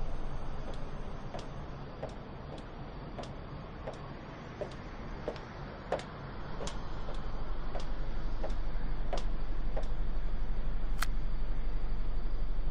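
High-heeled shoes clicking on a hard rooftop surface at a steady walking pace, about three steps every two seconds, with one sharper click near the end. A steady low background noise swells up about halfway through.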